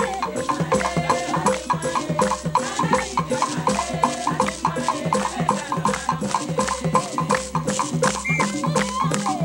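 Traditional Igbo women's dance music: a fast, steady beat of wooden knocks and rattles, about five strokes a second, with a melodic line over it.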